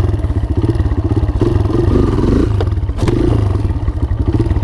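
Kawasaki KLX140 dirt bike's single-cylinder four-stroke engine revving for a wheelie attempt, its pitch rising and falling. Two sharp clacks come a little over halfway through.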